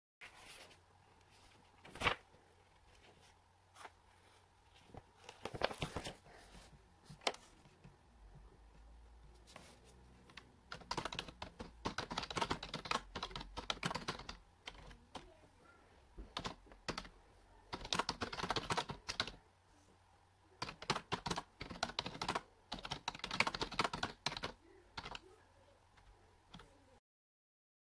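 Typing on a computer keyboard: a few scattered key clicks, then several bursts of rapid clicking a few seconds long with pauses between. The sound cuts off abruptly near the end.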